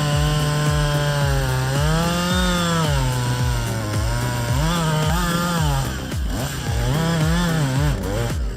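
Two-stroke chainsaw running under load, its engine pitch rising and falling several times as it is worked through the cut, over background music with a steady thumping beat.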